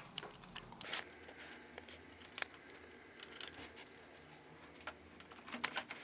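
Punch card being handled and fed into the card reader of a Brother KH260 knitting machine: light crinkling and rustling of the card with scattered clicks, a louder rustle about a second in and a quick run of clicks near the end.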